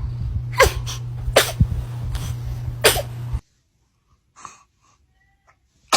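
A baby sneezing: three short sneezes over a steady low hum. The hum then cuts off to near quiet, and one more sneeze comes at the very end.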